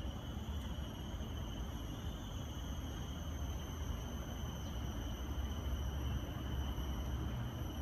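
Insects droning steadily at a high, even pitch over a low, steady rumble.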